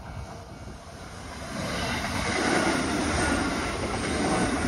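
Kintetsu 8600-series electric train approaching and passing. Its running noise swells from about a second and a half in and stays loud as the cars go by.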